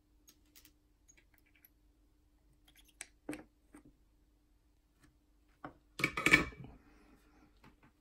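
Small clicks and taps of hand soldering work on a guitar pickguard's potentiometers, as a capacitor lead is soldered onto a pot lug, with one sharper tap about three seconds in. About six seconds in comes a brief, louder burst of noise, followed by a faint hiss, over a faint steady hum.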